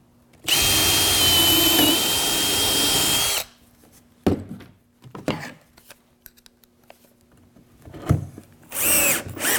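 Makita 18V cordless drill running steadily for about three seconds with a high whine as it bores a through hole in a wooden trim piece. A few light knocks follow, then a short burst of a power driver's motor speeding up near the end.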